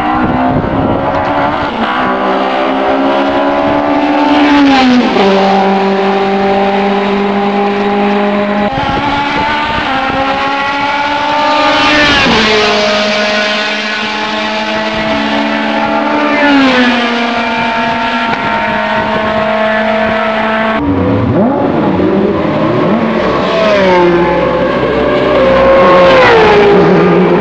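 Racing car engines at high revs, each engine note holding and then falling in steps as the cars brake and change down through the gears, several times over. The sound changes abruptly about two-thirds of the way through to a different car's engine note.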